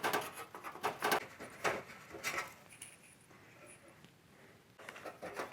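Pre-perforated foam being handled and fitted into a tool-box: a series of short scratchy rustles and light taps, more of them in the first two seconds and again near the end.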